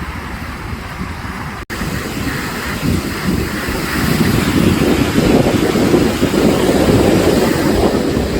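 Sea waves washing onto the shore, with wind rumbling on the microphone. There is a brief break about two seconds in, and the surf grows louder from about four seconds.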